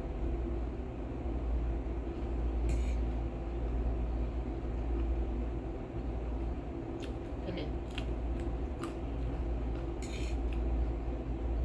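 Someone eating instant noodles: short sharp mouth and utensil clicks and smacks, scattered several times through, over a steady low background hum.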